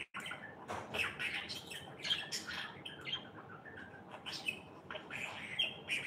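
Budgerigar chatter: a quick, continuous run of short chirps, squawks and clicks.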